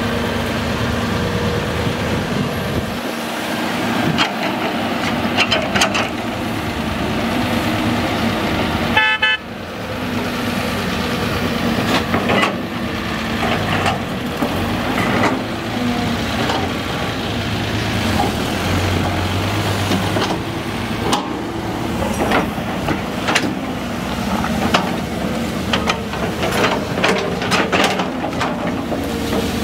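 Caterpillar 320C excavator's diesel engine running steadily while it digs soil and loads a dump truck, with repeated clanks and knocks from the bucket and falling dirt and rocks. The sound breaks off briefly about nine seconds in.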